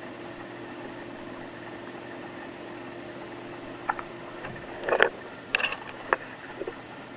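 Baby hiccuping: a few short, sharp hiccups and small catches of breath in the second half, the loudest about five seconds in, over a steady background hum.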